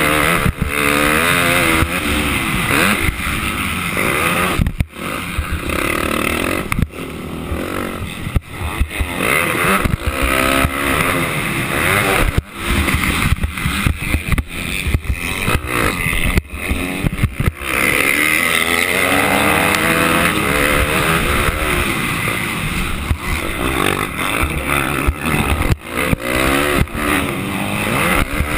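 Motocross bike engine heard from the rider's helmet, revving up and down again and again as it is ridden hard, with brief drops where the throttle is chopped.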